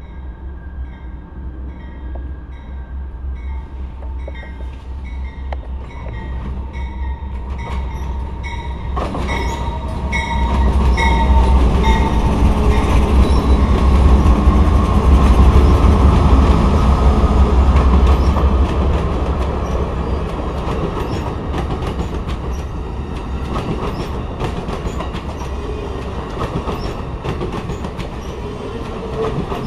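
A passenger train led by GE P42DC diesel locomotives approaches and passes. The engines grow loud about ten seconds in and are loudest for several seconds, then give way to the rolling clatter of double-deck passenger cars going by. A bell dings steadily, about one and a half times a second, through the first part of the approach.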